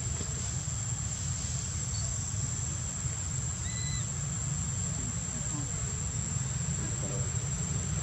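A steady, high-pitched insect drone, with a low rumble underneath and one short chirp about halfway through.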